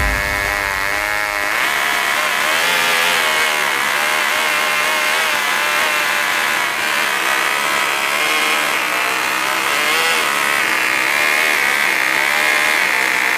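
Twin Cox .049 two-stroke glow engines, geared together in tandem, running at high revs with a high-pitched scream. The pitch jumps up about a second and a half in, then wavers up and down while the needle valves are set for each cylinder separately.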